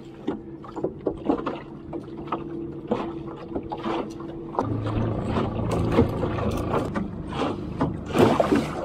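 Yamaha 15 hp outboard motor running steadily while trolling, with small sharp clicks from a Rapala lure and its hooks being handled. The motor sound grows fuller and a little louder about halfway through.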